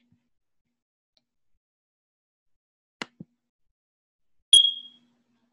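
A single short, high-pitched electronic chirp from a fire alarm that needs changing, fading out within half a second. Two faint clicks come about a second and a half before it.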